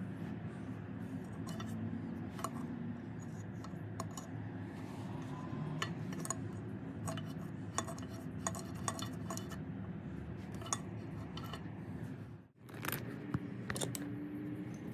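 Small steel parts clicking and clinking against the cast-iron gear housing of a jigsaw as its shaft assembly is fitted by hand, scattered light metal clicks over a steady low hum.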